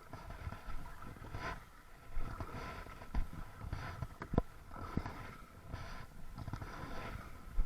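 Kayak paddle strokes splashing in the water, roughly one a second, with two sharp knocks in the middle.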